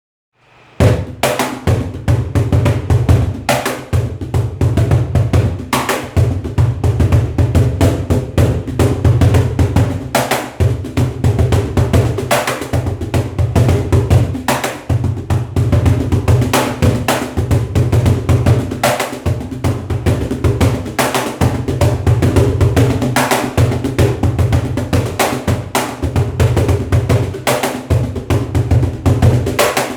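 Cajon played in a maracatu rhythm: deep bass thumps under quick, sharp slaps in a steady, driving groove, starting about a second in.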